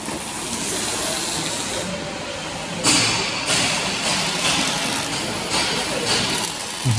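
Robotic welding cell at work in a factory: a steady hissing noise, with a louder hiss about three seconds in.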